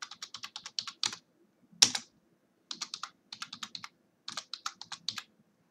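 Typing on a computer keyboard: quick runs of key presses in about four bursts with short pauses between them, and one louder single strike about two seconds in.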